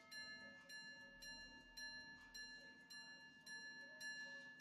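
Charles Barbezat-Baillot Le Phare minute repeater pocket watch chiming the time on its gongs: a quick, even run of light strikes, about three a second, all on the same tone and ringing on between strikes.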